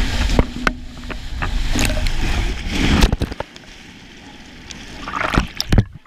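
Water rushing and sloshing down an enclosed tube water slide under a sliding rider, with scattered sharp knocks along the way. It ends in a loud splash into the pool shortly before the end.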